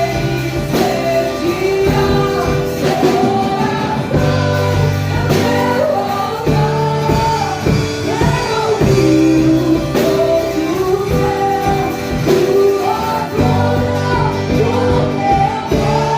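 Christian worship song: a voice singing a melody over sustained instrumental backing.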